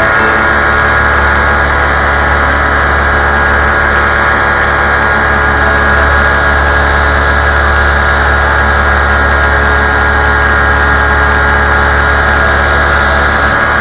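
Fly Products paramotor's engine and propeller running steadily at constant cruise power in flight, one unchanging engine note.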